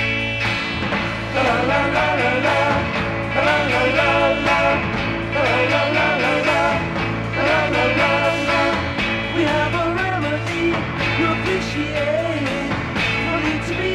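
1960s rock band music played from a vinyl LP, with singing coming in about a second and a half in.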